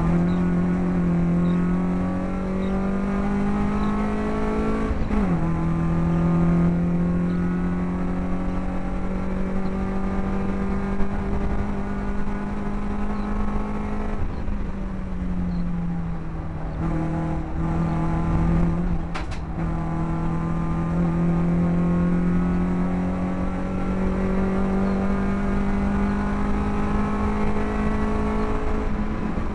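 BMW race car's engine heard from inside the cabin, running hard under load at racing speed over steady road and wind noise. Its pitch climbs slowly through each gear, falls sharply at an upshift about five seconds in, sags and picks up again around the middle as the driver lifts, then falls again at the very end.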